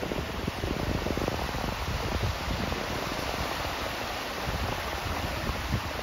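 Small sea waves breaking and washing in at the shoreline, a steady rushing hiss of surf.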